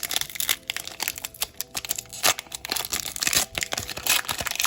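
Foil wrapper of a Pokémon TCG Unbroken Bonds booster pack being torn open and crinkled: a dense run of crackles that dies away near the end.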